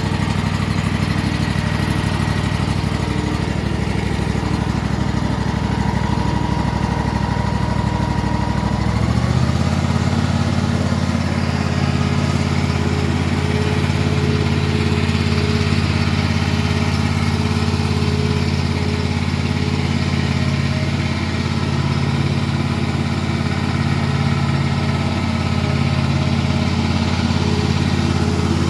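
Cub Cadet Pro Z500 zero-turn mower's 27 hp Kawasaki V-twin engine running. It idles at first, then the throttle is raised about nine seconds in and it runs steadily at the higher speed.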